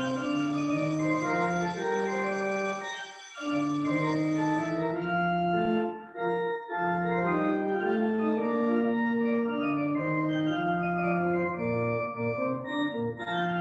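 Pipe organ playing a slow piece of held notes and chords, with short breaks between phrases about three seconds and about six seconds in.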